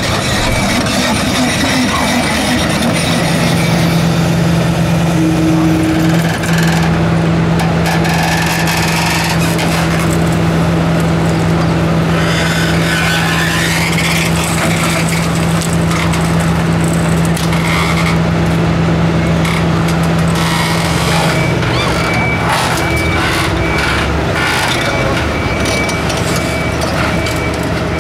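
Heavy diesel engines of an off-road Unimog trial truck and a crawler excavator running. A steady engine drone holds through most of the first two-thirds, then falls away.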